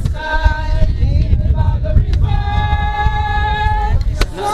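A group of voices singing a hymn without accompaniment, in long held notes, with a short break about two seconds in; a steady low rumble runs underneath and a sharp click sounds near the end.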